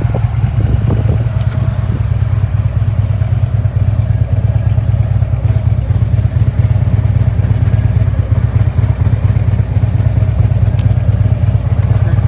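Motorcycle riding along with its engine running steadily, a continuous low rumble.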